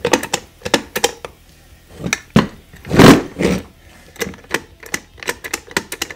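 Irregular metallic clicks and knocks from a car starter motor being dismantled on a workbench, with a ratchet working its bolts. There is a louder rattle about three seconds in.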